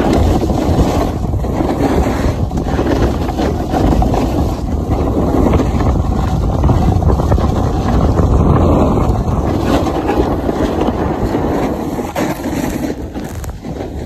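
Wind rushing over a phone microphone while skiing fast downhill: a loud, steady, low rumble that eases a little near the end.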